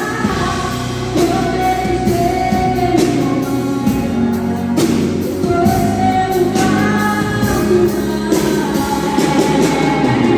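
A Portuguese-language gospel hymn sung over band accompaniment, the voice holding long notes above guitar and drums.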